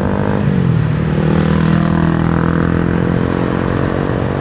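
Motor vehicle engine running, its pitch falling in the first second and then holding steady, over road noise.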